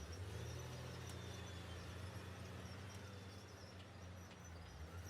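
Engine of heavy earthmoving equipment running steadily as a low hum, its pitch lifting slightly about half a second in. A faint, steady high insect drone runs along with it.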